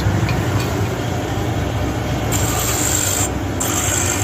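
A drill press running with a small mounted grinding stone in its chuck, with a steady low motor hum. About two seconds in, a splined steel axle part is held against the spinning stone and ground, a high grinding sound in two spells with a short break between them.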